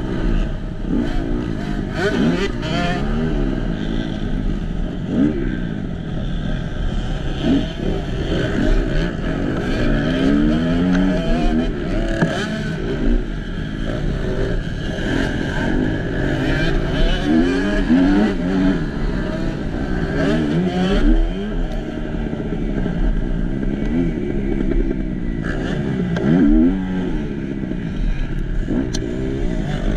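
Kawasaki KX250F four-stroke motocross bike heard onboard, its engine revving up and down repeatedly through the gears, with the engines of other motocross bikes close by rising and falling over it.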